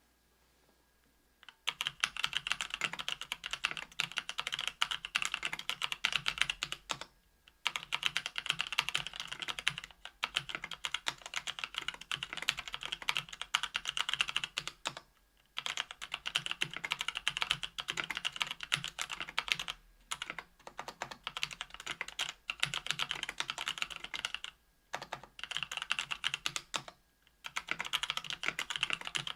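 Fast typing on a KBDfans Tofu 65% aluminium keyboard with stock Kailh Pro Burgundy 50g linear switches on an aluminium plate under GMK keycaps. The keystroke clacks come in dense runs of a few seconds with brief pauses, starting about a second and a half in.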